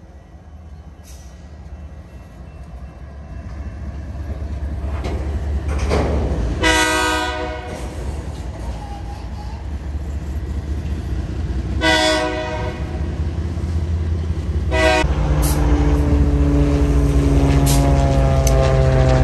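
Diesel freight locomotives led by an EMD SD70MAC approaching, their engines growing louder, and the horn sounding three times: one long blast about seven seconds in, then two shorter ones around twelve and fifteen seconds. After that, a diesel locomotive's engine runs close by with a steady deep hum.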